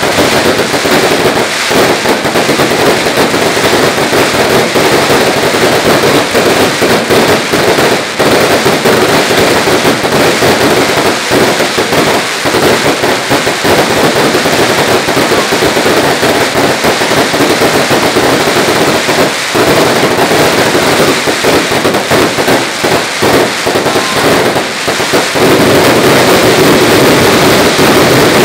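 Fireworks going off close by: a dense, unbroken crackle of firecrackers with many sharp bangs, over the rush of spark fountains. Near the end the crackle merges into a steadier, louder rush.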